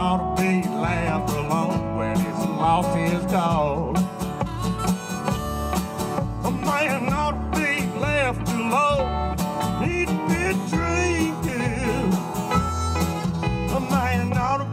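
A country band playing an instrumental break, with guitar over a steady bass beat and a lead melody that bends in pitch.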